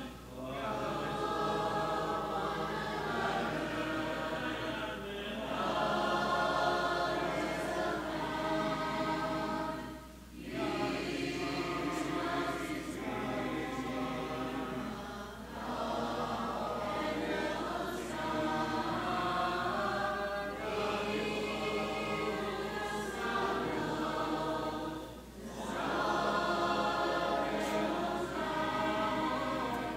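Congregation singing a hymn a cappella, with no instruments. The phrases are held and break for a breath about every five seconds.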